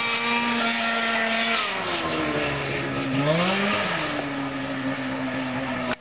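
Snowmobile engine at high revs with a whining pitch, easing off about two seconds in, briefly rising and falling again, then holding steady.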